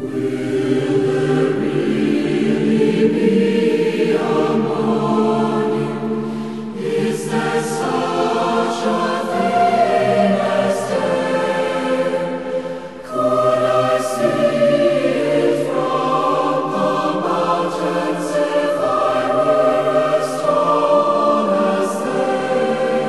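Background music: a choir singing slow, long-held chords, with a brief dip in level about halfway through.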